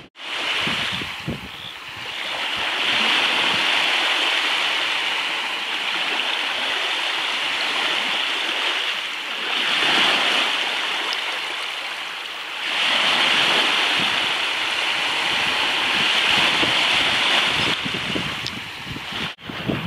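Small waves washing onto a sandy beach in shallow water, the surf swelling and easing in slow surges every few seconds.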